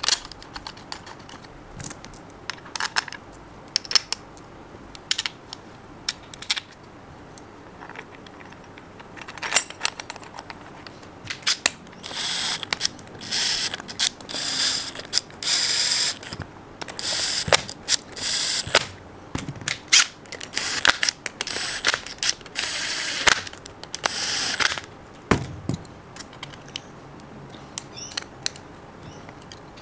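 Small metal clicks and taps as screws are set into the gearbox housing by hand. From about twelve seconds in, a cordless driver runs the screws in with a string of short whirring runs, each about a second long, and there is a single knock near the end.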